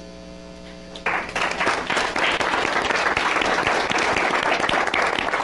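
A brief lull with a steady electrical hum, then an audience applauding from about a second in.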